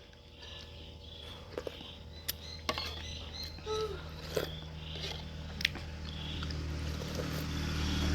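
Eating noodle soup: scattered light clicks of spoon and bowl, with small slurping sounds. A low steady hum grows louder over the last few seconds.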